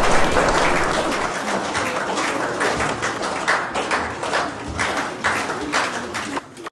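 Crowd applause dying down, the steady clapping thinning into scattered individual claps and fading out. It cuts off abruptly near the end.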